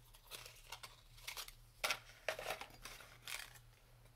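Small makeup items and packaging being handled: a scattered string of short rustles and light clicks, the loudest a little under two seconds in.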